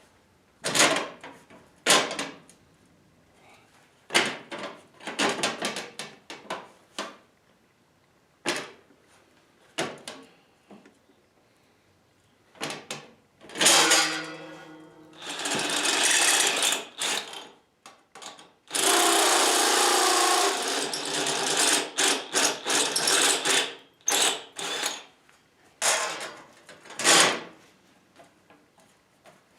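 Metal shop work: a run of sharp knocks and clanks, broken twice by a power tool running for a few seconds at a time.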